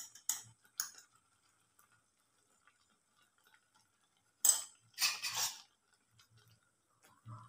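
A spoon clinks against the pot and salt container as salt is added to the boiling pot of taro stems: three quick clinks, then a louder clink about halfway through, followed by a short rattling scrape.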